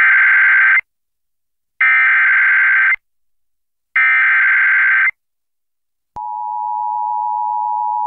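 Emergency Alert System SAME header data bursts: three bursts of digital data tones, each about a second long, about two seconds apart. About six seconds in, the steady two-tone EAS attention signal (853 and 960 Hz together) starts and holds.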